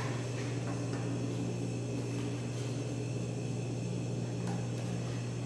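Steady low electrical hum with a faint hiss, and a few faint light clicks.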